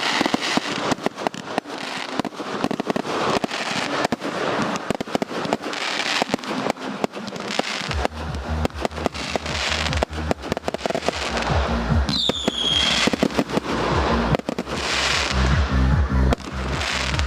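Fireworks display going off in a dense, rapid series of bangs and crackles, with a short falling whistle past the middle. From about eight seconds in, a music soundtrack with a heavy bass beat plays under the explosions.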